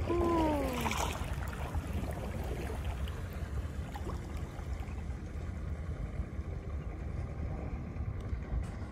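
Kayak out on the water: a steady low rumble of wind on the microphone with faint water noise. A short falling vocal sound comes right at the start, then a brief splash-like burst about a second in.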